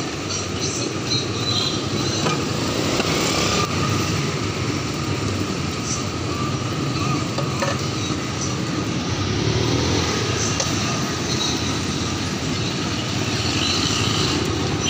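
Steady street traffic noise, with vehicles running.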